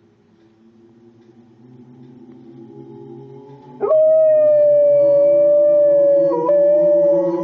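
A Rottweiler howls along to punk rock music. The music builds, then about four seconds in the dog swoops up into one long, loud, held howl with a short break near the end.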